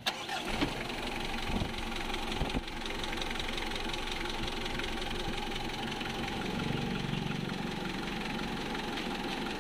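Mitsubishi 4D56 2.5-litre four-cylinder diesel engine catching and settling into a steady idle. It starts readily now that new glow plugs are fitted.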